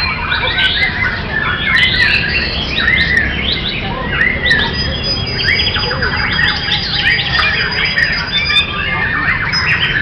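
Several caged white-rumped shamas singing at once, a dense, overlapping stream of quick whistles, trills and harsh chattering notes, with a steady low rumble underneath.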